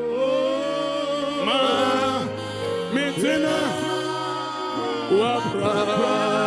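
Gospel worship music: voices singing slow, drawn-out lines that slide between notes over long held chords.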